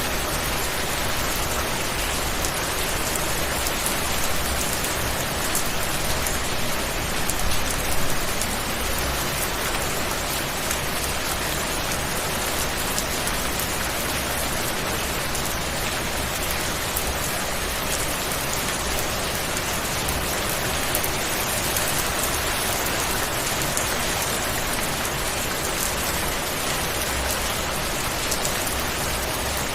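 Steady heavy rain falling on a surface, a dense even hiss dotted with fine drop patters, swelling slightly about eight seconds in.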